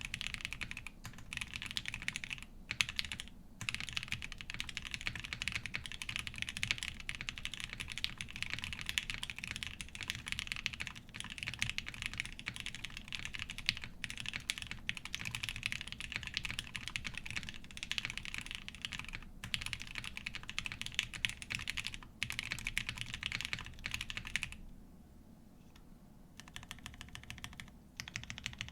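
Continuous fast typing on a Vega mechanical keyboard with lubed and filmed Gateron Ink switches, a polycarbonate plate, case foam and GMK keycaps. The keystrokes are dense and run together. The typing pauses briefly near the end, then resumes more lightly.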